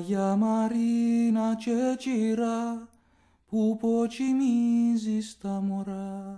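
A solo voice singing a Cypriot Greek lullaby in long, held notes, with a short break about halfway through.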